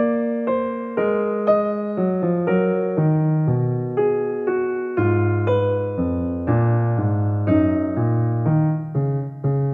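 Background piano music, with notes struck at a steady pace of about two a second.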